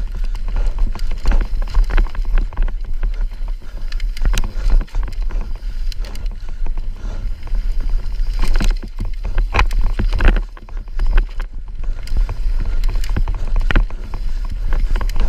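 Mountain bike descending a rough trail at speed: the chain, suspension and tyres rattle and clatter over roots and rocks. Heavy wind buffets the microphone, and a few harder knocks come around nine and ten seconds in.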